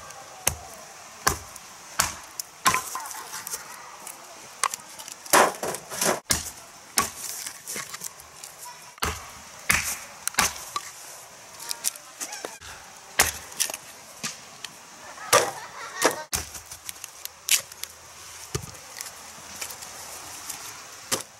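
A hatchet splitting short firewood logs into kindling on a wooden chopping block: a dozen or more sharp, irregular chops, often in quick pairs, with the wood cracking apart.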